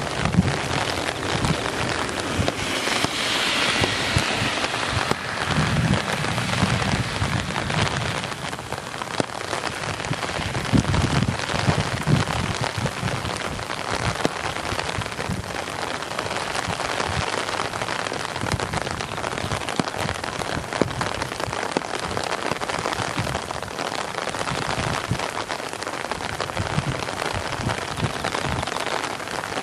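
Torrential downpour, heavy rain pelting steadily, with a few low rumbling swells about six and eleven seconds in.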